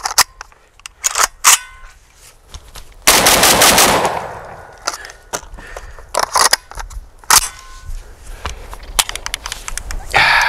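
A JTS AR12 magazine-fed 12-gauge shotgun fired once about three seconds in: a loud blast whose echo dies away over about a second. Sharp metallic clicks and clacks of the action and magazine come before and after it.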